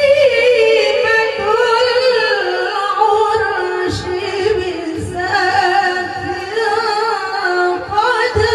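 Women singing an Arabic devotional song into microphones, with long held notes ornamented by wavering turns in pitch.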